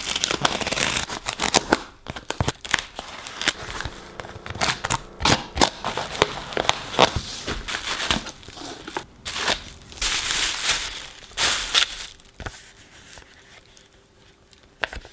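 Cardboard parcel being opened by hand: a knife cutting packing tape and plastic strapping, tape ripping and cardboard flaps pulled open, then a clear plastic liner rustling and crinkling as bags are lifted out. A string of sharp cuts, rips and rustles, loudest about ten to twelve seconds in and quieter near the end.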